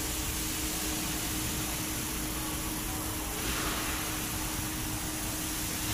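Lexus RC350 running, heard from underneath by the A/C condenser: a steady rushing noise with a steady low hum.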